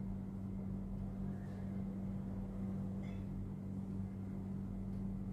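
Steady low hum, with no speech over it.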